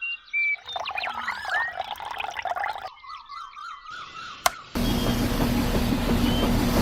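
Chirps and gliding whistles, then about two-thirds of the way through a small motor starts abruptly and runs with a steady hum.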